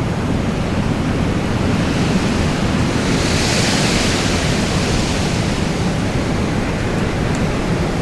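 Strong wind blowing in a continuous rush with a low rumble, a gust swelling and fading in the upper hiss about halfway through.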